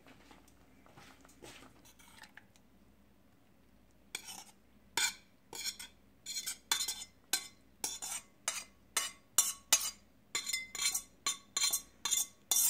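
A metal spoon scraping and clinking against a stainless steel pan as tteokbokki is scraped out onto a plate, in sharp repeated strokes about twice a second starting about four seconds in. There is faint soft stirring before that.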